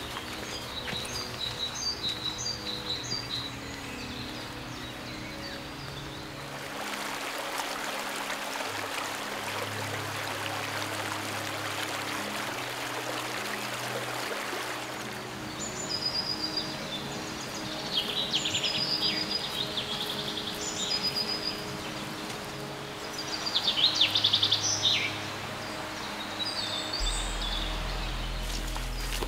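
Woodland birds chirping and singing in short phrases, near the start and again through the second half, loudest a little before the end. In the middle a stretch of steady rushing stream water takes over for several seconds.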